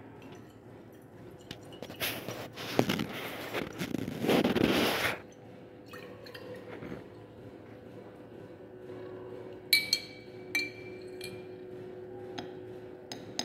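Solution swirled and sloshing in a glass conical flask for about three seconds. Later, two sharp glass clinks with a brief ring, a glass rod knocking against glassware.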